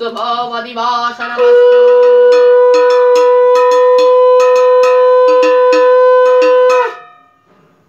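A hand bell rung rapidly, about three strokes a second, together with a conch shell blown in one long steady note, as a Hindu puja offering is completed; both start just after a chanted line and stop together sharply near the end.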